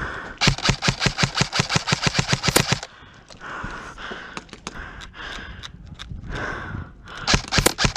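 Airsoft gun firing a rapid full-auto burst, about ten shots a second for over two seconds, then a second short burst near the end.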